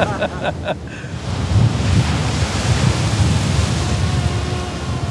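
Surf breaking on the beach and wind buffeting the microphone. From about four seconds in, a faint steady hum comes in from a camera drone's propellers as it hovers out over the water carrying a bait line.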